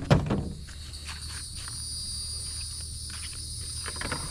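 Steady high-pitched buzzing of insects, with a low rumble underneath and a few faint clicks.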